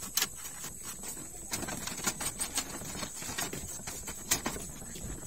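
Irregular light clicks and taps of plastic as hands and a small tool work on the underside of an Epson L360 inkjet printer.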